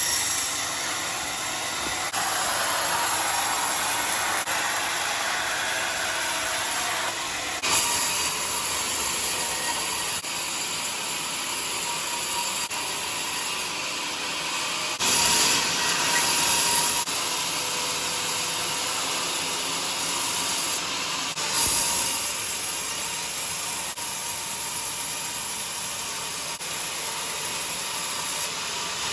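A sawmill blade cutting through a log of joar wood, a steady hissing and rasping noise, with several abrupt changes where separate cuts are joined together.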